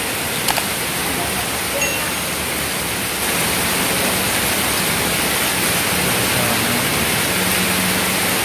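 Heavy rain pouring down in a steady hiss, growing louder about three seconds in.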